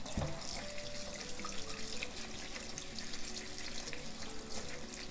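Tap water running steadily onto sorrel leaves being rinsed by hand in a stainless steel colander.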